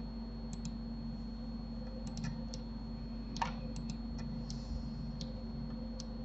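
Scattered clicks of a computer mouse, about a dozen, irregularly spaced, the loudest about halfway through, over a steady low electrical hum.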